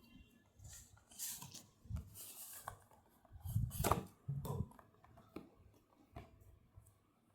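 Packaging being handled while a box is unboxed: rustling and scraping, a louder knock a little before the middle, then a few light clicks.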